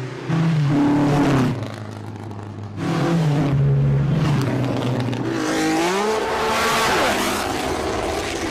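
Ferrari racing car engines revving in a run of separate bursts: a short burst at the start, a longer one a few seconds in, then a higher note that climbs and falls back near the end.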